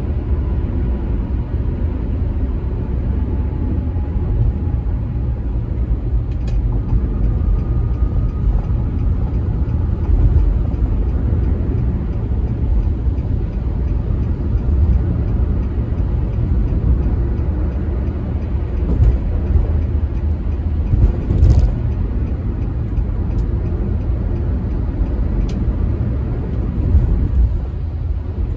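Steady low road and engine rumble of a car cruising at highway speed, heard from inside the cabin, with a few brief faint clicks.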